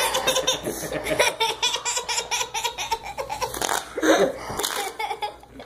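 Hearty laughter in a long run of quick pulses, with a louder burst of laughing about four seconds in.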